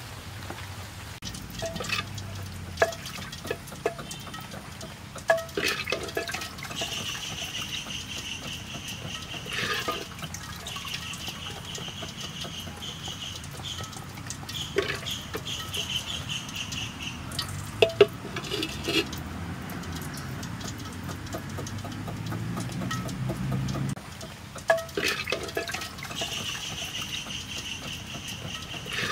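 Kitchen work sounds: scattered knocks and clicks of utensils, and a wooden spoon stirring liquid in a clay pot. Behind them, a high chirping comes and goes in stretches of a few seconds.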